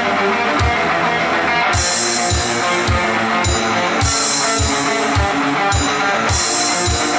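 Rock music: electric guitar playing over a drum beat, with a steady kick drum and cymbals coming in about two seconds in.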